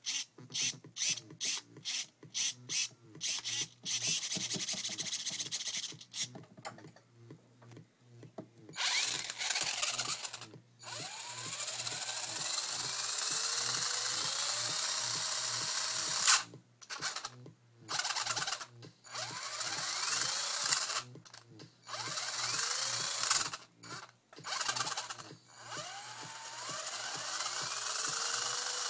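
Electric motor and drivetrain of an RC drift car, a 15-turn motor, run with the wheels spinning free. First comes a quick string of short throttle blips, then repeated longer pulls whose whine rises in pitch and winds down again.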